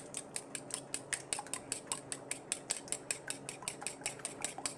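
A fork beating two eggs in a ceramic bowl, clicking against the bowl in quick, even strokes, about five a second.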